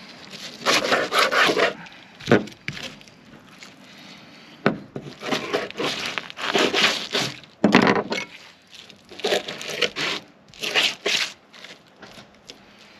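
Serrated fillet knife sawing and scraping through a fish's rib bones and flesh on a plastic cleaning board, in a series of short, irregular scraping strokes.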